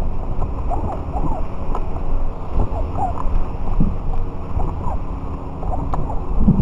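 Wind buffeting the model rocket's onboard camera microphone as a steady low rumble, with faint short chirps rising and falling above it.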